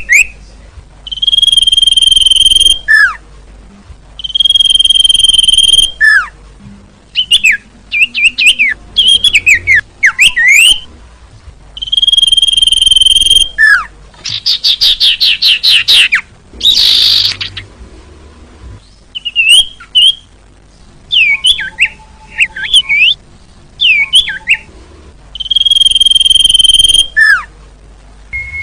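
Sirtu (cipoh) bird singing. Long, steady, high whistles that end in a quick falling note repeat about every few seconds, between bursts of fast chattering notes, a rapid trill and one harsh rasp.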